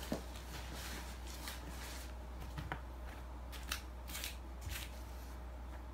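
Arc'teryx Pack Shelter rain cover rustling in a string of short, quiet crinkles as it is tugged and settled over a backpack.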